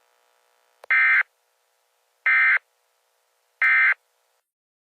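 Three short bursts of Emergency Alert System SAME digital data, each about a third of a second long and evenly spaced. These are the end-of-message code that closes an alert broadcast.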